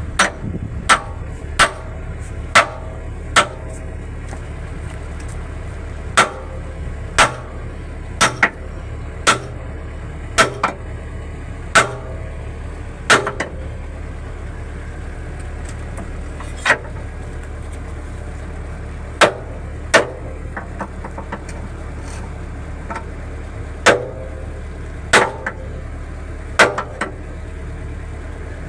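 Hammer blows on metal, each ringing briefly, struck at an uneven pace of roughly one a second, over a steady low engine hum.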